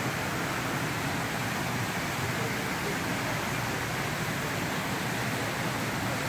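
Steady, even rushing of an artificial waterfall in an indoor wildlife display.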